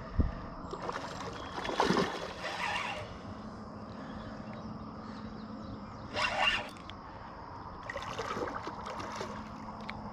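Water splashing and sloshing in three bursts, from a hooked common carp thrashing at the surface as it is fought in, with a single thump at the start.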